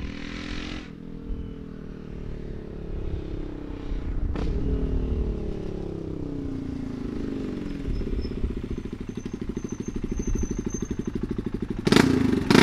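650cc big single-cylinder engine of a custom BSA Scrambler with a custom exhaust. The engine note falls and rises with the revs, then settles into a slow, evenly pulsing beat at low revs from about eight seconds in. Near the end it opens up loudly.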